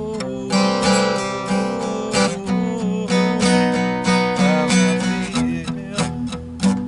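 Acoustic guitar playing blues: lead notes bent and wavering in pitch over a low bass note repeating in a steady rhythm.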